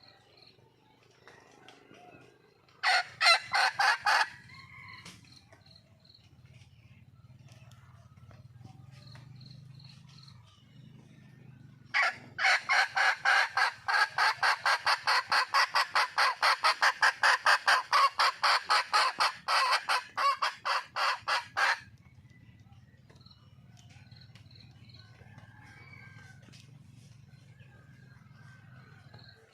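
Junglefowl hen calling: a short string of about six sharp, rapid notes, then a long run of the same notes, three or four a second for about ten seconds. This is the wild hen's call to attract a mate.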